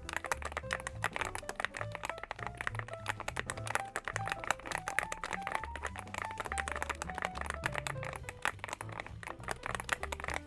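Fast typing on a YUNZII AL66 aluminium, gasket-mount mechanical keyboard: dense, rapid keystroke clicks. Background music with a stepped melody and a pulsing bass line plays underneath.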